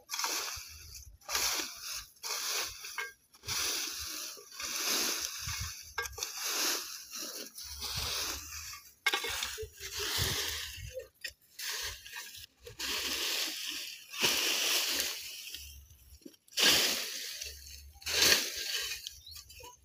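Hoe scraping and dragging dry leaf litter and twigs across the ground, with a rustling scrape roughly every second.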